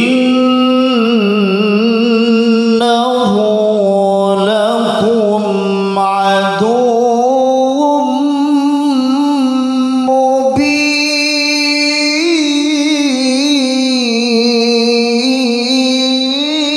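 A man reciting the Qur'an in the melodic tilawah style into a handheld microphone. He holds long notes with wavering ornamented turns, with a few short breaks between phrases.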